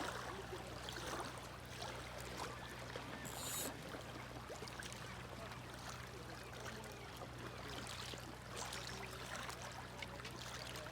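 Flowing river water, a steady rushing noise, with a steady low hum underneath.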